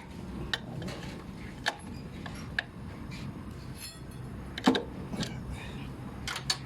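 Hand tools working on metal fittings while the truck's AC filter drier is removed: a string of short sharp metallic clicks and clinks, the loudest about two thirds of the way in.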